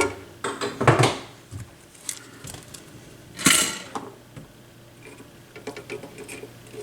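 Small metal tools and parts clinking and tapping against each other and the bench while a circuit board is worked on by hand: a few sharp knocks about a second in, and a louder brief scrape about three and a half seconds in.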